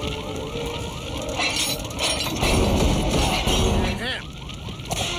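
Cartoon sound effects: a fast run of repeating warbling sweeps, then a loud crash with breaking and shattering about two and a half seconds in.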